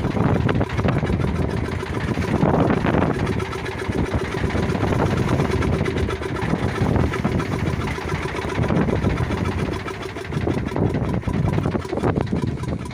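Small boat's engine running steadily.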